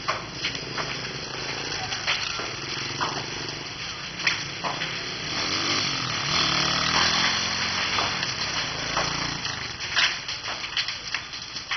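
Burning wooden house: the fire crackles and pops in sharp, irregular snaps over a steady noise.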